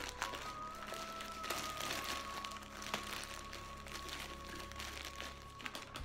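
Packaging crinkling and rustling as a parcel is opened by hand, in many short crackles, over soft background music with long held notes.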